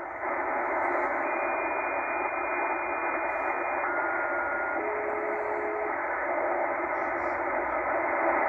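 Shortwave receiver in upper-sideband mode hissing with band noise as it is tuned upward through the 12.9 MHz marine band. A steady whistle from a signal steps down in pitch three times, high to low, as the tuning passes across it.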